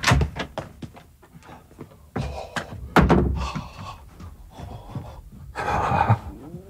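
A few knocks and thuds, the loudest about three seconds in, then a short breathy rush near the end.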